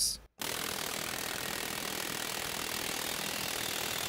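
A .401-shank pneumatic air hammer firing continuously into a steel test fixture on 150 PSI air. It starts just under half a second in and runs as a steady, dense, rapid hammering.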